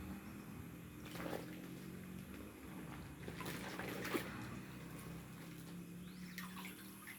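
Water splashing and pouring as a plastic bag of tilapia fry is emptied into an aquaponics tank, in a few short bursts, the loudest about four seconds in. A steady low hum runs underneath.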